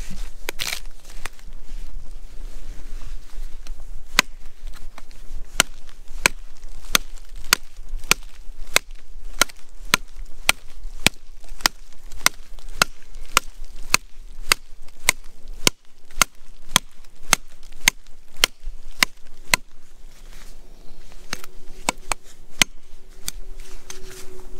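Fixed-blade bushcraft knife chopping into a beech log: sharp, regular blows about two a second, starting a few seconds in.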